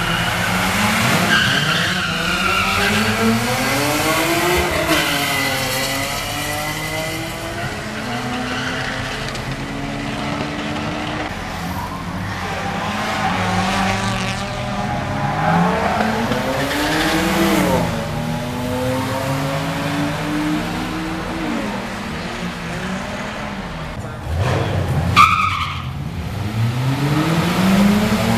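Drag-racing street cars' engines revving up and dropping back again and again at the starting line, with tyre squeal from burnouts. About 25 seconds in there is a sudden loud burst, then an engine climbs steadily in pitch as a car accelerates off the line.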